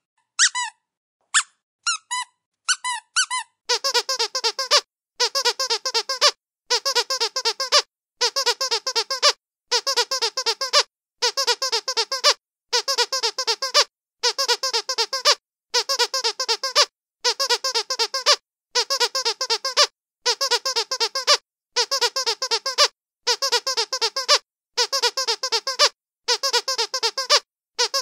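Squeaky dog toy being squeezed: a few separate squeaks at first, then from about four seconds in, quick runs of several squeaks each, repeating about once a second.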